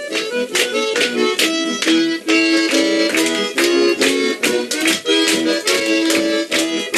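Lively folk-style background music: a free-reed instrument plays a stepping melody over a quick, steady beat.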